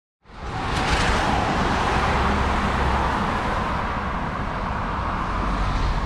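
Road traffic noise with wind rumbling on the microphone, fading in just after the start.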